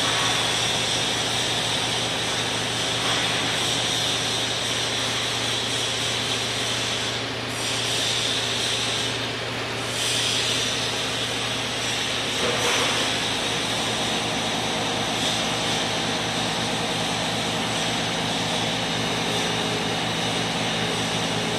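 Toshiba TMD-13 CNC vertical boring mill running with its rotary table turning: a steady machine hum with a hiss over it.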